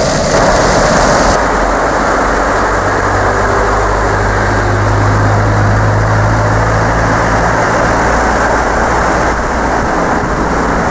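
Fountain jets splashing in a bright hiss that stops after about a second. Then a shallow river rushes over gravel in a steady noise. A steady engine hum comes in over the water about two seconds in and fades out near the end.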